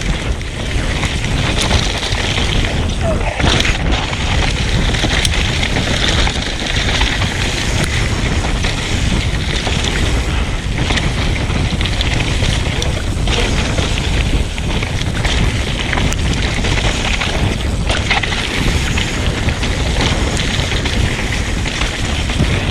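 Mountain bike descending a rough dirt trail at speed: steady wind rushing over the microphone, with tyre roar and occasional knocks and rattles from the bike over bumps.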